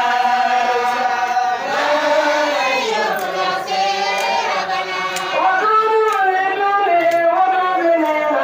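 A group of mostly women's voices singing a religious chant together in long, gliding melodic lines. From about three seconds in there are sharp clicks about once a second.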